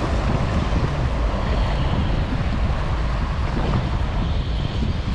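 Wind buffeting the microphone in a steady low rumble, over the wash of choppy water around a small boat.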